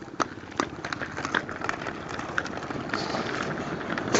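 Inline skates rolling over rough pavement: a steady rolling hiss broken by irregular clacks and scrapes.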